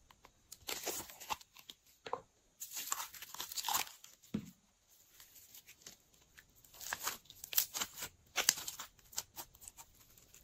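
Glossy blue slime squeezed out of a plastic bottle and stretched by hand: irregular wet crackling and tearing sounds in several bursts.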